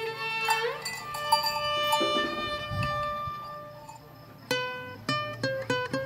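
A violin playing long held notes, with a rising slide near the start, dies away to quiet by the middle. About three-quarters of the way in, a guitar starts picking short single notes in an uneven rhythm.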